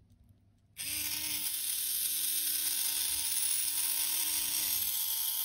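Small brushed DC motor from an RC helicopter starting suddenly about a second in and spinning very fast with a steady high whine, powered by a single homemade lead-acid cell of about 2.1 volts.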